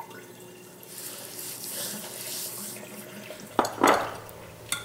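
Dry barbecue rub sprinkled from a spoon onto a raw pork butt and the sheet pan beneath it, a soft, sandy hiss lasting a couple of seconds. A brief handling sound of the hand on the meat follows near the end.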